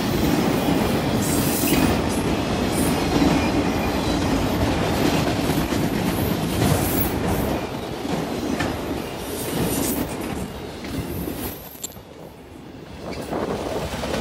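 Autorack cars of a freight train rolling past: steady rumble and clatter of steel wheels on rail, with occasional sharp clicks. The noise dips briefly about twelve seconds in, then picks up again.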